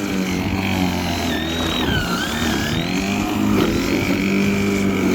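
Worx 42 cm cordless electric lawnmower running, its motor and blade giving a steady hum with a high whine. About two seconds in, the pitch dips briefly and then recovers as the mower bogs down in the grass.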